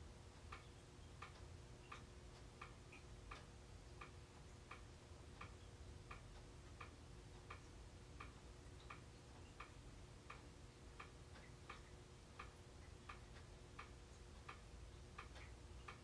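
Ceiling fan turning on a low speed, giving a faint, light clicking about three times every two seconds over a faint steady motor hum.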